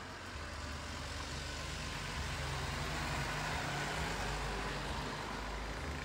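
Road traffic from the street below: a steady rush with a low hum that swells a little midway as a vehicle passes.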